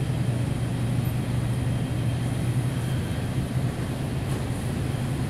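A steady low mechanical hum under an even rushing noise.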